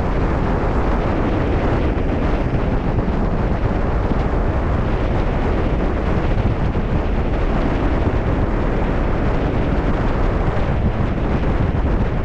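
Wind buffeting the microphone on the deck of a cruise ship at sea: a steady, loud rumble and rush without breaks.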